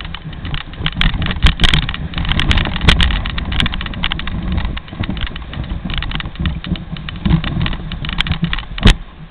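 Dog sled running downhill over snow: a loud, continuous scraping rumble from the runners, broken by frequent sharp knocks and rattles as the sled jolts, with one especially loud knock near the end.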